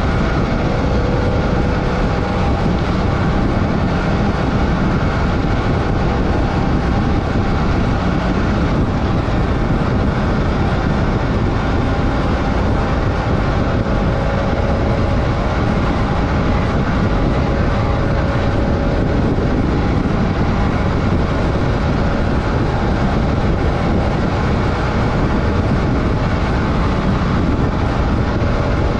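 Adventure motorcycle cruising steadily on a dirt road: the engine's even hum sits under a constant rush of wind and road noise.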